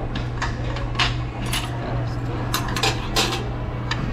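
Plates and bowls clinking and knocking on a table as a server sets down dishes, a series of sharp clinks over a steady low hum.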